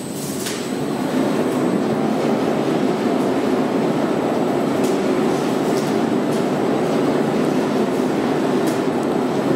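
Evopac Nobel Core Brake stretch-wrap pallet wrapper running, with its turntable drive and the film pulling off the core-braked roll. It builds over the first second, then settles into a steady drone with a few faint ticks.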